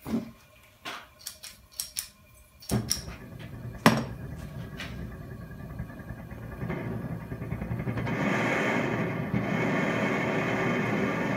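A few sharp clicks and knocks as a homemade propane torch, run on compressed air instead of oxygen, is relit. Then the torch flame burns with a steady hiss that swells and turns louder about eight seconds in.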